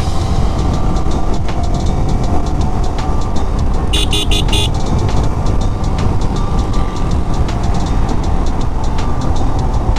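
Yamaha R15 V3 motorcycle riding at speed, its engine under heavy wind rush on the action camera's microphone. About four seconds in, a vehicle horn gives four short beeps in quick succession.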